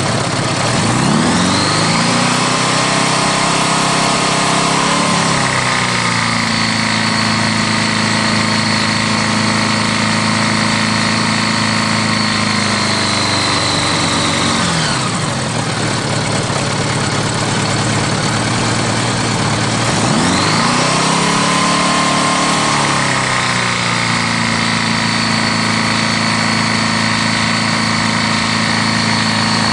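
Honda GL1100 Gold Wing's liquid-cooled flat-four engine idling and being revved twice, holding for a few seconds each time before dropping back to idle. Its knock is taken for a rod knock, along with a drop in oil pressure.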